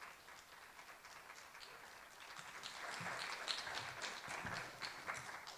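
Faint audience applause, a dense patter of many hands clapping that swells about halfway through and dies away at the end.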